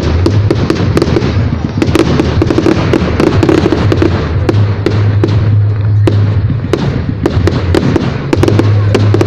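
Fireworks display going off loudly: a dense run of bangs and crackles in quick succession, over a steady low hum.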